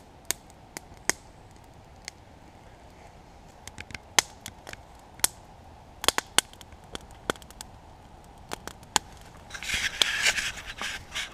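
Wood campfire crackling, with irregular sharp pops scattered throughout. A short burst of rustling noise comes about ten seconds in.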